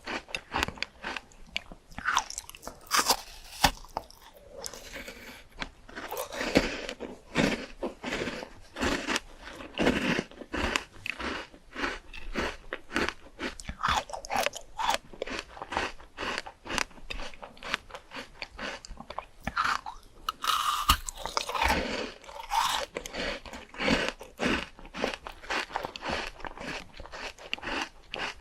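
A person biting and chewing fruit close to the microphone: many quick crisp crunches all the way through.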